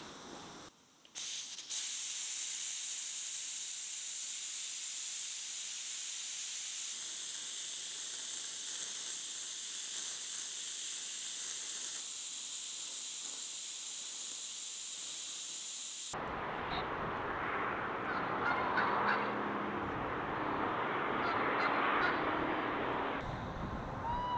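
Steam hissing hard and steadily from the pressure-release valves of a cast-iron Afghan kazan pressure cooker as its pressure is let off. The hiss starts about a second in, eases slightly after about seven seconds, and stops abruptly at about sixteen seconds. Outdoor sound with farmyard birds calling follows.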